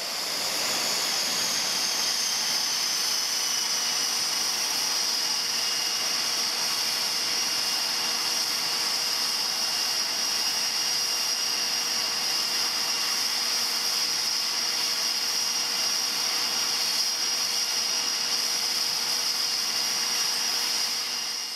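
A turbine engine running steadily: a high whine that slides slightly down in pitch over the first two seconds, over a rushing hiss. It fades in at the start and fades out at the end.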